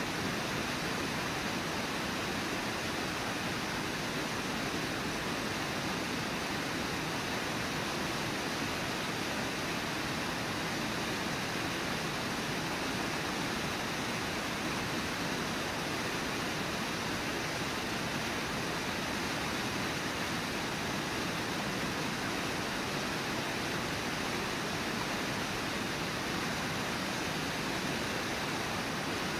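Steady, unbroken rush of a small waterfall pouring into a fast river.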